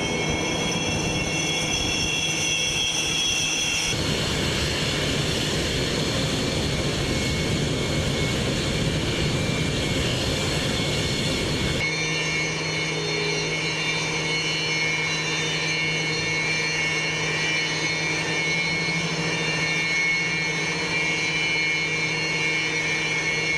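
Jet engines of Su-33 carrier fighters running on deck: a steady, loud rushing noise with high whining tones. The sound changes abruptly about four seconds in and again about twelve seconds in.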